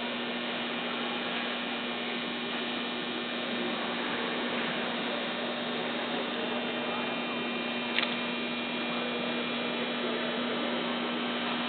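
A steady electrical hum over a constant background hiss, with one short click about eight seconds in.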